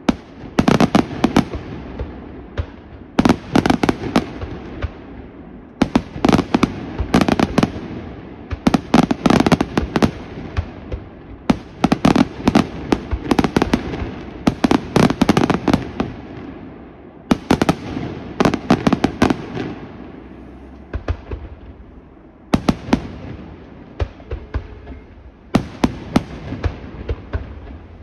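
Aerial fireworks display: flurries of rapid sharp bangs and crackles from shells bursting overhead, each flurry lasting one to four seconds. In the short lulls between them a low rumbling echo carries on.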